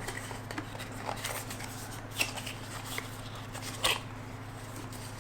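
Packaging and drone accessories being handled during unboxing: a few scattered light taps and rustles, over a steady low hum.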